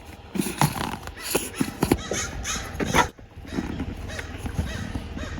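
Irregular clatter of knocks and clicks from things being handled and packed away in a camper van.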